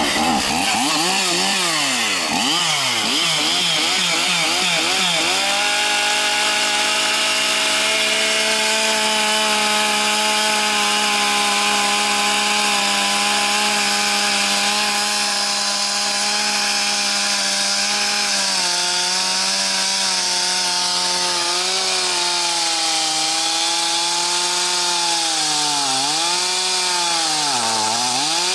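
Stihl two-stroke chainsaw blipped up and down for a few seconds, then held at full throttle while its bar is driven straight down into the soil. From about two-thirds of the way through, the engine pitch sags and recovers again and again as the chain bogs down in the dirt, dropping deepest near the end.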